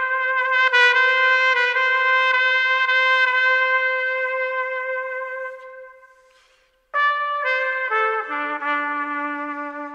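Background music: a solo brass melody. A long held note fades out about six seconds in, then after a brief break a falling phrase ends on a low held note that fades away.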